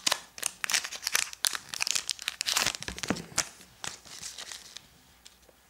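A Pokémon trading card booster pack's foil wrapper crinkling and tearing as it is opened by hand: a quick run of crackles that thins out and stops about four and a half seconds in.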